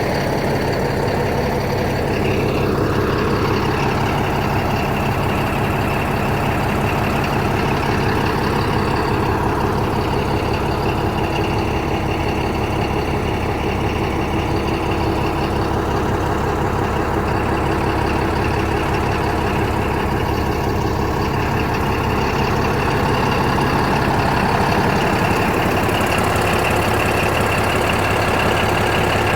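Komatsu D155A-6 bulldozer's six-cylinder diesel engine running steadily, its pitch falling once a few seconds in.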